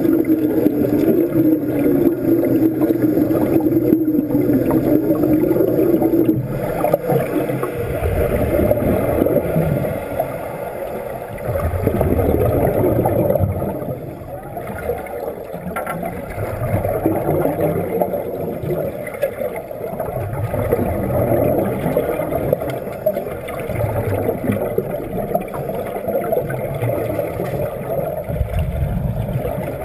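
Underwater wet-welding arc buzzing steadily for the first six seconds or so, then cutting out. After it stops, irregular bubbling and gurgling water noise follows, heard underwater.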